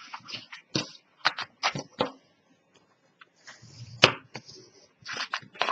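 Chipboard and paper being handled and pressed down by hand on a cutting mat: a string of quick taps and clicks with some rustling, and a sharp knock about four seconds in.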